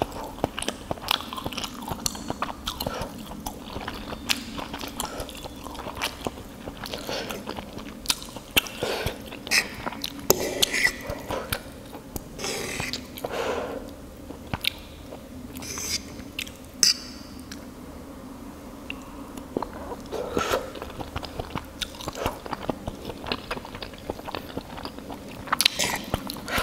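Close-up wet chewing and mouth clicks of a man eating fried meatball crab, irregular smacks and bites, with a fork tapping and scraping on the ceramic plate.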